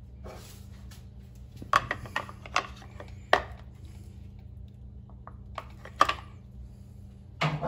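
White plastic housing wrench clicking and knocking against the plastic filter canister of an APEC RO-90 reverse osmosis unit as it is fitted and snugged down, a string of sharp separate clicks with the loudest about three and a half seconds and six seconds in. A steady low hum runs underneath.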